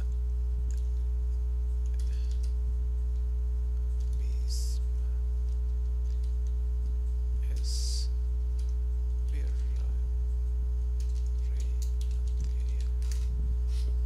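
Steady electrical mains hum from the recording chain, with a low drone and a stack of overtones throughout. Scattered computer-keyboard keystrokes and clicks sit over it, with a quick run of them near the end.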